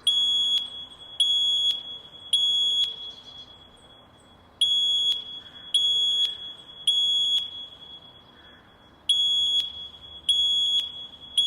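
Fire alarm sounding the temporal-three evacuation signal: three high-pitched beeps about a second apart, a pause, then the group of three again, nine beeps in all. Each beep trails off in the room's echo.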